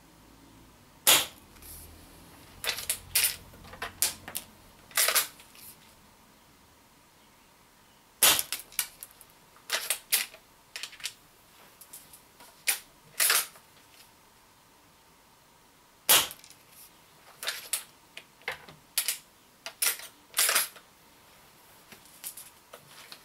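Three shots from an Umarex Legends Cowboy CO2 lever-action BB rifle, each a sharp crack, about seven to eight seconds apart. After each shot comes a run of mechanical clicks and clacks as the lever is worked to eject the shell and chamber the next one.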